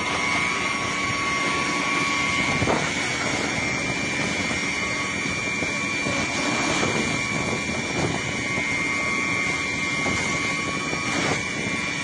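Fireground noise: a steady rushing roar from a fire hose stream and a fire engine's pump running, with a thin steady whine. Sharp cracks come about three seconds in and near the end.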